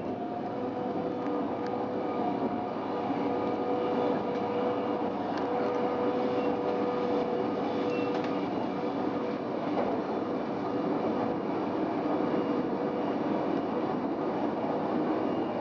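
Stadler GTW 2/6 diesel railcar running along the track, heard from inside its cab: a steady rumble of wheels on rail with a constant hum, and a few faint clicks. It grows a little louder over the first few seconds.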